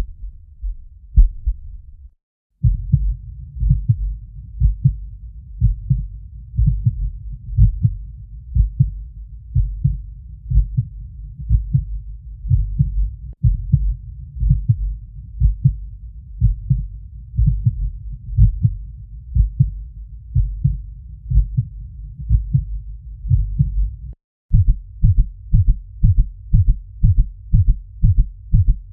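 Heartbeat sound effect: deep, low thumps in steady lub-dub pairs. The beating stops briefly about two seconds in and starts again at a steady pace. After another short break near the end it resumes at a faster rate.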